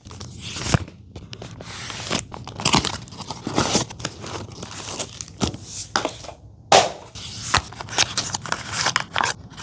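Packaging being opened and handled: rustling, crinkling and tearing, broken by sharp taps and clicks.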